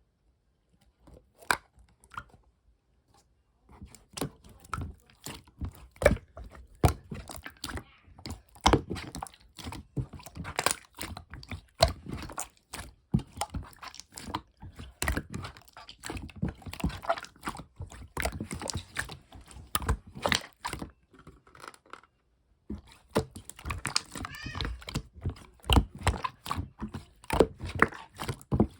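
Clear light-green slime being squished and pressed by hand, making a dense, irregular run of sticky pops and clicks with a short lull about 22 seconds in.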